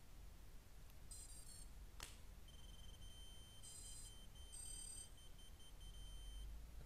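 A click as the quadcopter's battery plug is connected, then the quadcopter's buzzer sounds a high tone that breaks into short, evenly spaced beeps near the end. The buzzer is signalling that the receiver cannot find the radio's signal.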